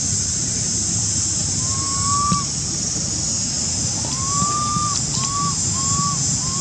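Steady high-pitched insect drone over a low rumbling background, with several short arching call notes: one about two seconds in, then four in quick succession in the second half.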